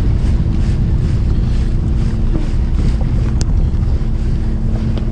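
Fishing boat's engine running steadily under loud wind buffeting the microphone, with a brief sharp tick about three and a half seconds in.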